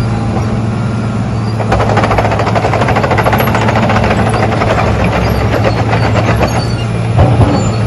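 Wirtgen W1200F cold planer's diesel engine running with a steady hum, joined after about two seconds by a rapid mechanical clatter that lasts about five seconds, with a short knock near the end.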